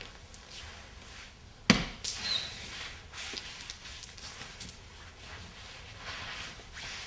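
A dancer's body and lead-covered gloves and shoes sliding and scraping across a floor, with one sharp knock about one and a half seconds in and a few softer bumps just after.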